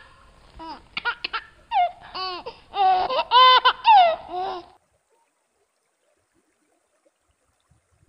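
High-pitched laughter, a quick string of giggling calls that rise and fall in pitch. It cuts off suddenly about five seconds in.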